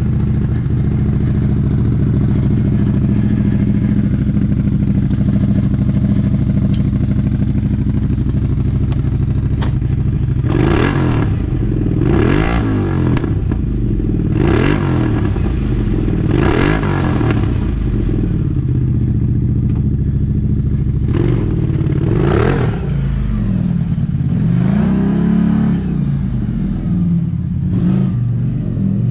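CFMoto 800 EX side-by-side's V-twin engine through a custom exhaust with mandrel-bent header tubing and a carbon-fibre muffler. It idles steadily for about ten seconds, then is revved in a series of sharp blips, each rising and dropping back to idle, with a few smaller blips near the end.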